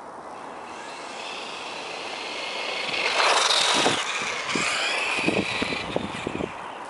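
Traxxas E-Revo electric RC monster truck driving past: its motor's high whine builds, is loudest about three to four seconds in, then fades. Short crackles follow near the end.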